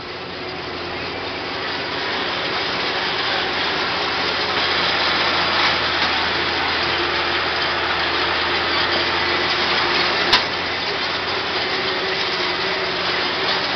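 Allis-Chalmers 7000 tractor's diesel engine running under way, building up over the first couple of seconds and then holding steady, with a single sharp click about ten seconds in.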